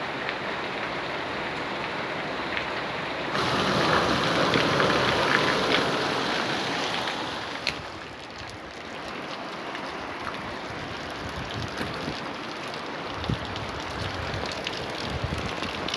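Heavy storm rain, a steady hiss with no other clear sound. It gets louder about three seconds in and falls back about eight seconds in.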